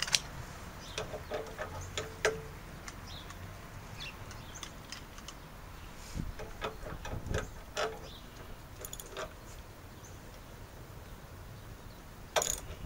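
Hand tools and metal hardware clicking and clinking now and then while lights are bolted onto a brace, with a sharper metallic clatter near the end.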